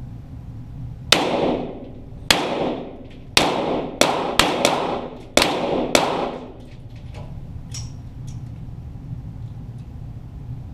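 .22 Walther GSP target pistols firing eight shots over about five seconds, irregularly spaced, with a pair close together near the middle, each shot ringing on in the room's echo.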